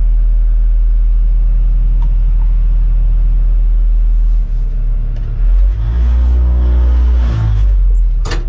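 Bulldozer's diesel engine running with a heavy low rumble. About halfway through the engine note changes and it revs up, holding a higher steady pitch before dropping back near the end.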